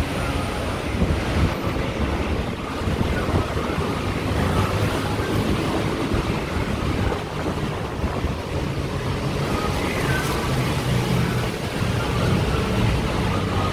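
Busy street traffic: a continuous rushing wash of passing vehicles with a low engine hum underneath.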